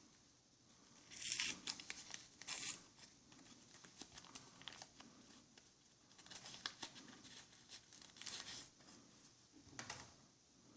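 Alcohol prep pad sachet being torn open and crinkled, in several short rasping tears and rustles.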